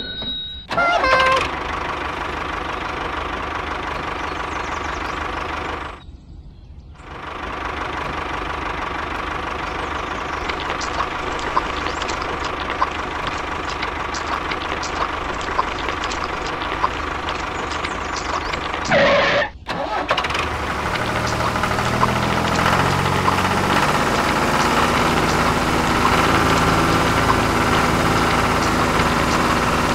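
Tractor engine running steadily as the model tractor drives through mud. It drops out briefly about six seconds in and again just before the twenty-second mark, then goes on at a lower, even chugging.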